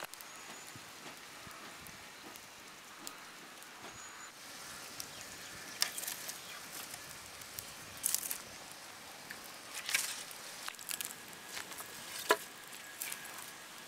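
Wood fire burning in an open pit in the ground, crackling steadily with scattered sharp pops and snaps, the loudest about twelve seconds in.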